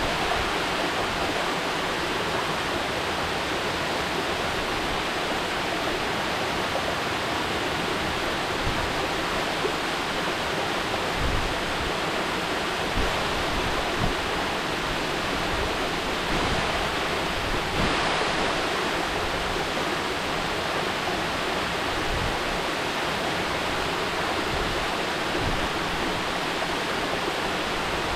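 Mountain waterfall pouring steadily, a constant rushing of falling water with a few faint low thumps.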